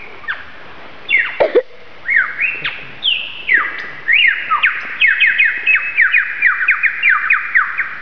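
Superb lyrebird singing loudly: a run of whistled swoops and slurs, then a fast series of falling whistle notes, about five a second, that stops shortly before the end.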